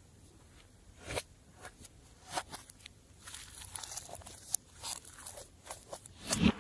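Slime being worked by hand, giving off irregular crackling clicks and pops, a few a second, with a louder burst of them near the end.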